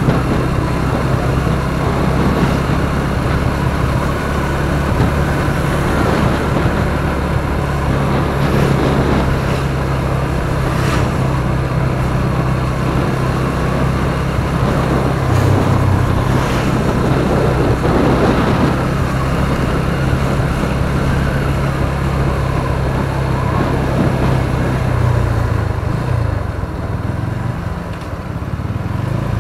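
Motorcycle engine running steadily under way, with wind rushing over the microphone; the engine note wavers and drops near the end as the bike eases off. The rider says the bike is due for a service.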